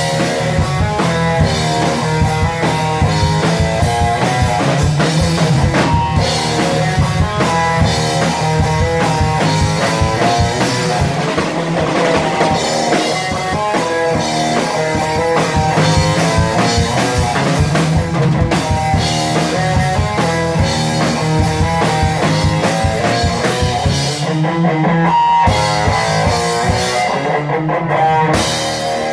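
Live rock band playing loudly: electric guitar and bass through amplifiers over a steady drum-kit beat.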